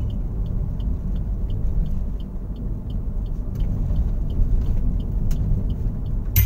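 Car cabin rumble while driving at road speed: steady low road and engine noise heard from inside the car, with a faint quick ticking above it.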